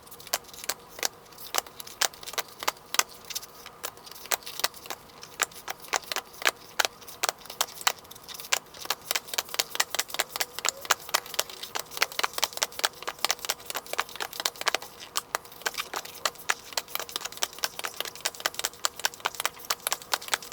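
Tarot cards dealt off the deck one at a time onto a pile to count them, each card landing with a short, sharp click, about three to four a second at a steady pace.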